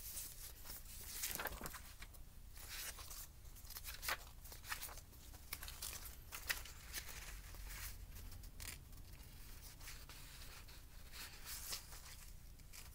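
Sheets of craft paper being leafed through and handled: a string of short, irregular rustles and crinkles.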